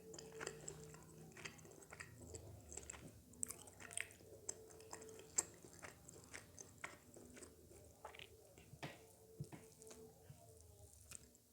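Close-miked chewing and biting of food in the mouth: soft wet clicks and small crunches at an irregular pace, with one sharper click about five seconds in.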